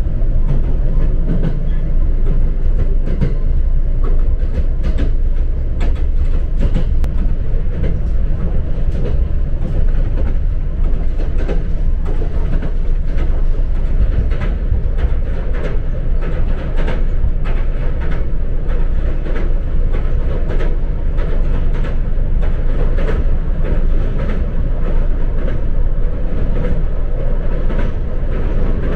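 Moving electric train heard from inside the passenger car: a steady low rumble of wheels on rail, with many sharp clicks and clacks of the wheels over rail joints.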